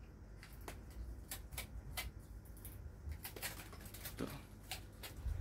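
A freshly washed air conditioner indoor unit starting up, flinging out leftover rinse water: irregular light ticks and spatters over a low rumble.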